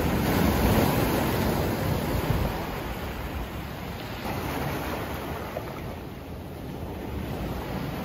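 Sea waves breaking against concrete tetrapods and washing up a pebble shore: a steady surf wash, loudest in the first couple of seconds, then easing off.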